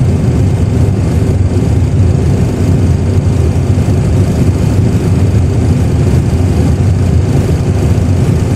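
Boeing 737 Classic full flight simulator's reproduced engine and runway noise during the takeoff roll at takeoff thrust: a loud, steady low rumble.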